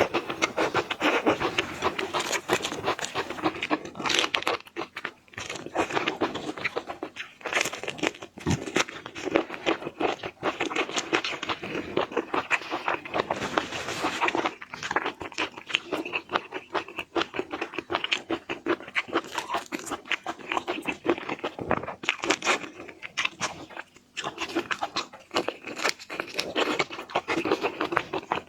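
Close-miked seafood eating: chewing and shell-cracking that makes dense, rapid crunching and crackling.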